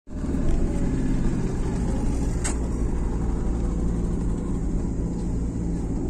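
Steady engine and road rumble of a moving vehicle, heard from inside its cabin. A single short click comes about halfway through.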